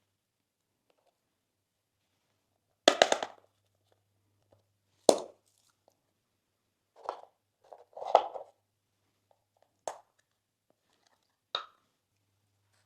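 Slime with crunchy add-ins being pressed and squished by hand, giving about six short crackling, squishy bursts with pauses between them. The loudest come about three and five seconds in.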